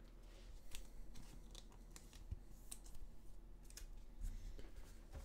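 Faint, scattered light clicks and rustles of trading cards being handled and laid down on a table, with a foil card pack taken from the stack near the end.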